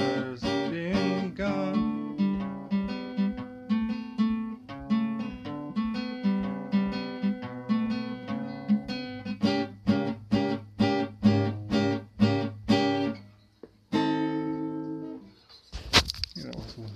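Guitar playing a blues instrumental ending: picked notes and rhythmic strums, closing on a final chord held for about a second and a half. A few knocks follow near the end.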